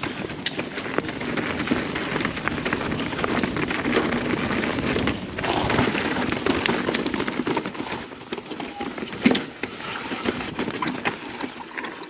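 Mountain bike ridden down a rough trail: tyres crunching over dirt and rock with constant rattling clicks from the bike, and one sharper knock about nine seconds in.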